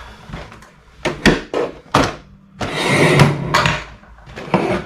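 A series of sharp knocks and clacks, with a short rustling scrape of about a second in the middle.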